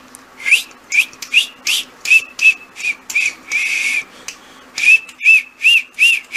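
A person calling a puppy with short, repeated whistled squeaks, about three a second, each rising and falling in pitch, with one longer note just past the middle.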